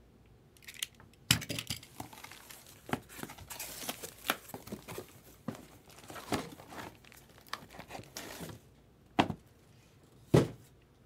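A cardboard shipping box being opened and unpacked: irregular rustling, tearing and scraping of cardboard and packing. Near the end come two sharp knocks as the boxes are set down on the table.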